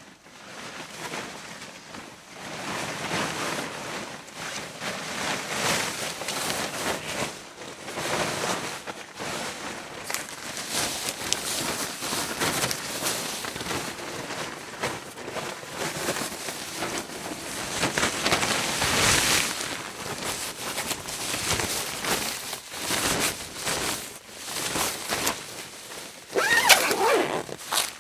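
A protective radiation suit being put on or taken off: its stiff fabric rustles and crinkles continuously, swelling and fading with each movement. Near the end comes a louder, quick run of rasping, like the suit's zipper being pulled.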